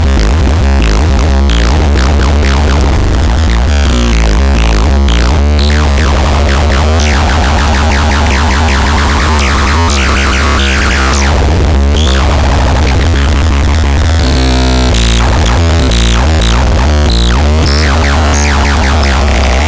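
Electronic dance music in a dubstep style: synthesizer lines over a heavy, continuous bass and a drum-machine beat.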